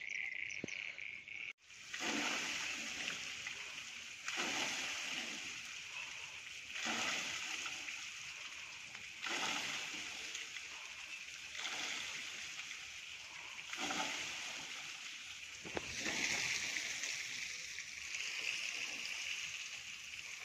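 Heavy monsoon rain falling steadily, with rainwater splashing off a roof edge; the hiss swells and fades every two to three seconds.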